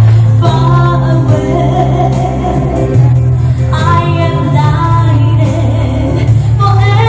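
A woman singing a slow pop ballad over a backing track, with sustained sung notes above a steady bass.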